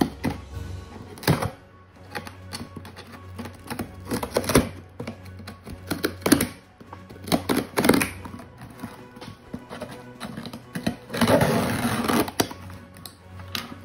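Small scissors clicking, scraping and snipping at the packing tape on a cardboard shipping box, with a longer ripping rasp about eleven seconds in as the tape is slit. Steady background music plays underneath.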